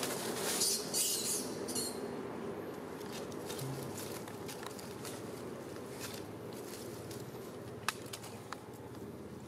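Dry leaf litter crackling and rustling as a baby macaque moves and handles things in it. The crackling is loudest in the first two seconds, then thins to scattered light clicks over a steady background noise.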